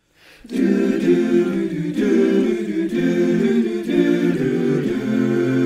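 Men's a cappella chorus singing in harmony, the full chord coming in suddenly about half a second in.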